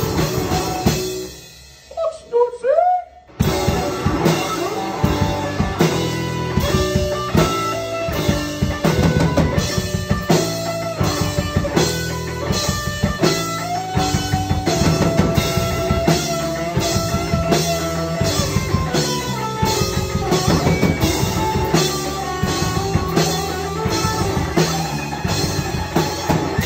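Live rock band playing an instrumental passage on electric guitar, electric bass and drum kit. About a second in, the band drops out for roughly two seconds while a few gliding notes sound alone, then the full band comes back in on a steady beat.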